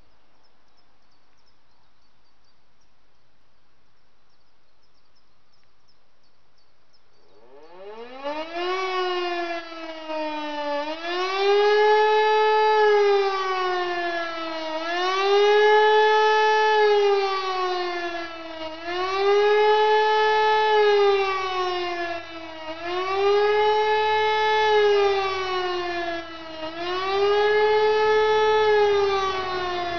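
An E57 electromechanical motor siren spins up about seven seconds in, its pitch climbing from low, then settles into a loud tone that rises and falls about every four seconds: the German "Warnung" warning signal.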